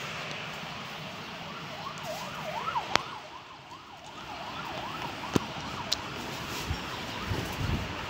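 Gusty wind rushing through trees, with an emergency-vehicle siren wailing rapidly up and down for a few seconds in the middle. There are a few sharp clicks, and low thumps near the end.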